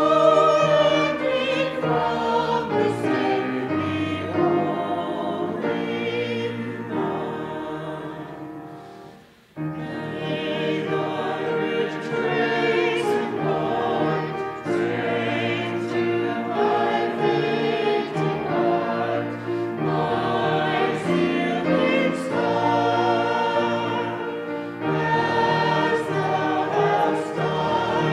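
A choir singing sacred music over a steady low accompaniment, fading to a brief break about nine seconds in before the next phrase begins.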